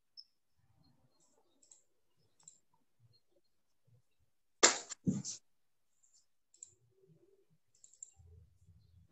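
Computer mouse clicking: two loud, sharp clicks about half a second apart a little before the middle, with a few faint ticks around them.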